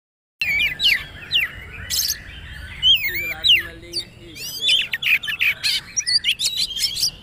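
Oriental magpie-robin (kacer) singing in the rapid, varied 'poci trotol' style: quick chirps, sweeping whistled notes and sharp clicks in a dense run. It starts abruptly about half a second in.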